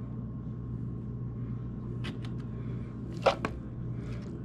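A metal fork scooping coleslaw from a plastic bowl, with a few light clicks and then one louder, brief scrape about three seconds in. A steady low hum runs underneath.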